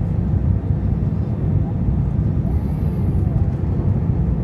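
Airliner cabin noise heard from inside the cabin: a steady, loud low rumble of the jet engines and airflow.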